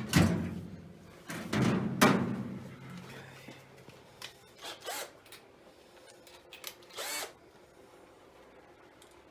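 Cordless drill driving a self-tapping screw into the intake manifold in two short bursts in the first two seconds, followed by a few light clicks and knocks.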